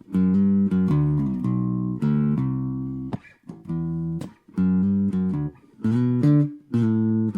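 Electric bass guitar played through an EROK MA10 mini bass practice amp: a melodic line of plucked notes, with short breaks about three, four and five and a half seconds in.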